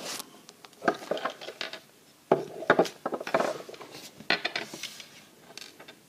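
Beyblade top parts and a plastic launcher handled on a wooden table: scattered clicks, taps and light clatter of metal and plastic pieces as a top is taken apart and set down, in several short clusters.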